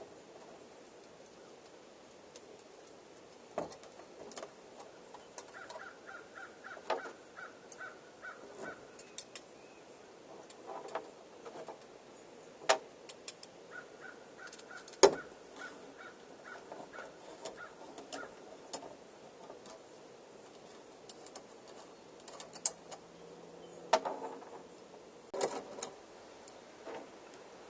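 Scattered clinks and taps of small metal bike parts and tools being handled during a crank swap, one sharper knock about halfway through. A faint high tone comes and goes twice.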